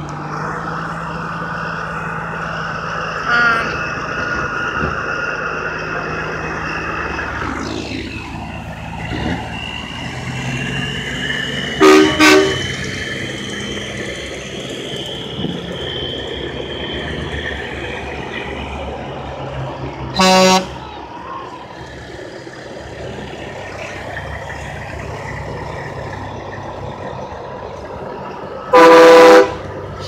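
Semi trucks rolling past with their diesel engines running, sounding their air horns: a short toot about three seconds in, a quick double blast around twelve seconds, another blast around twenty seconds, and the longest, loudest blast near the end.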